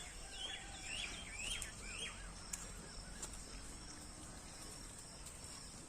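Birds chirping outdoors: a quick series of four or five short up-and-down chirps in the first two seconds, then scattered fainter chirps, over a steady high-pitched hiss.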